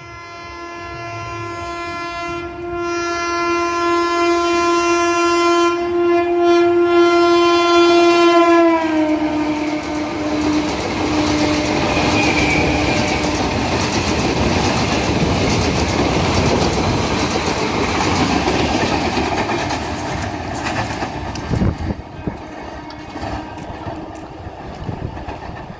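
Kolkata suburban EMU local train sounding a long, steady horn as it approaches at speed. The horn's pitch drops suddenly as the train passes, about nine seconds in. The coaches then go by with a loud rushing rattle of wheels over the track, which eases off near the end.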